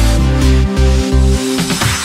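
Electronic dance music with a heavy bass beat; the bass thins out briefly near the end.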